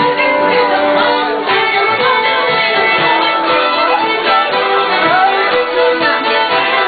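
Live band playing an instrumental passage of a traditional Gascon dance tune, with held, overlapping notes and no singing.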